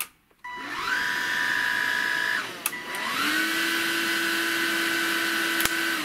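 Bosch BBHL2D18GB 18-volt cordless stick vacuum switched on and run on its two power settings: a click and a rising motor whine that settles to a steady pitch, then after another click about halfway it spins up again and runs steadily on the other setting. A click near the end and the motor begins to wind down.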